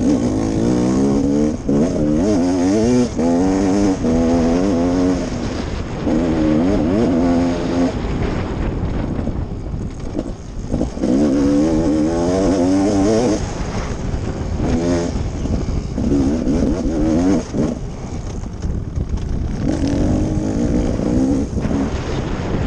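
Dirt bike engine under the rider, revving hard in repeated bursts that climb in pitch, dropping back between them.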